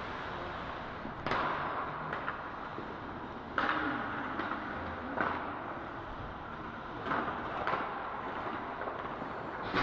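Youth ice hockey game play: steady arena noise broken by about six sharp knocks of puck and sticks against the boards and ice.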